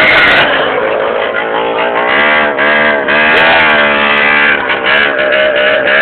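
Quad bike engine revving, its pitch rising and falling as the throttle is worked.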